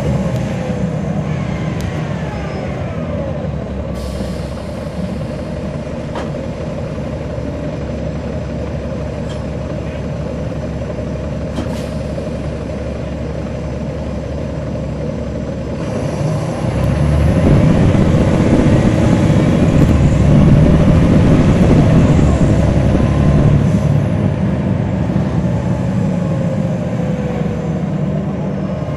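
On-board sound of a 2009 NABI 40-SFW transit bus with a Caterpillar C13 ACERT diesel engine and a ZF Ecomat six-speed automatic transmission, running on the road. The engine drone is steady at first, grows louder a little past halfway through, then eases off slightly near the end.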